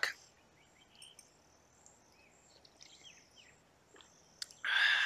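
Faint, scattered high-pitched chirps of small wildlife against a near-quiet background. Near the end comes a short, louder slurping sip from a coffee mug.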